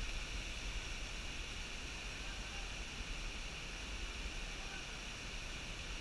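Steady rushing noise of the waterfall's falling water, with a low rumble of wind on the microphone.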